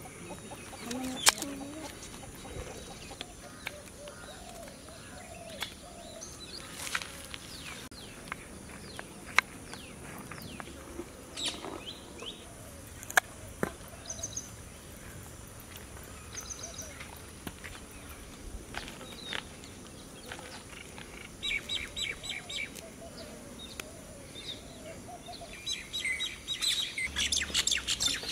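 Birds chirping outdoors, with quick runs of chirps in the second half, over occasional sharp taps of a knife cutting onions and tomatoes on a wooden chopping block.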